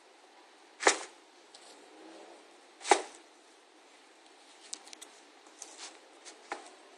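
Handling noise from football boots and their box: two sharp knocks about two seconds apart, then lighter clicks and rustling.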